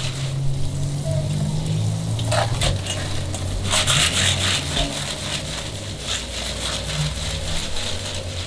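Tap water running into a steel bowl of cockles while hands rub and stir them, the shells clicking and clattering irregularly against each other and the bowl, over a steady low hum.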